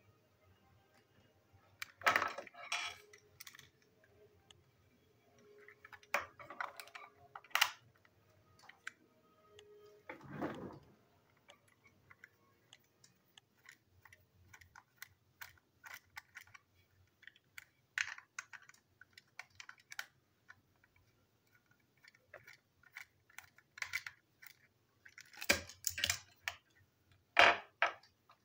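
Plastic toy train engine being handled and taken apart with screwdrivers: scattered small clicks and taps of plastic and metal parts, with a few louder knocks as tools and pieces are set down on the desk.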